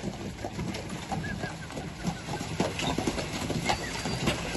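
Hooves of a horse team clopping irregularly on a wet, muddy road as a horse-drawn cart approaches.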